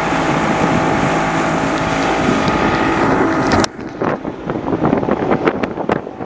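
Motorboat engine running steadily at speed, with wind rushing over the microphone. About three and a half seconds in the engine hum cuts off suddenly, leaving uneven, gusty wind noise on the microphone.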